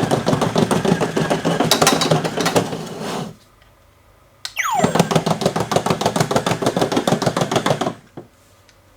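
Battery-powered toy robot running in two bursts of about three seconds, its small motor and gears rattling in rapid even clicks, each burst opening with a rising whine as the motor spins up.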